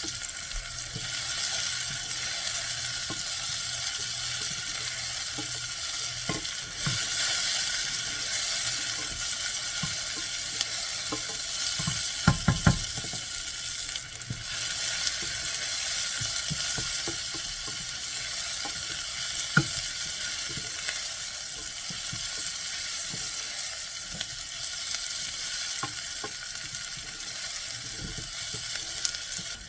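Chopped onions and sweet peppers sautéing in oil in a pot, with a steady sizzle. A stirring utensil knocks sharply against the pot three times in quick succession around the middle, and once more a few seconds later.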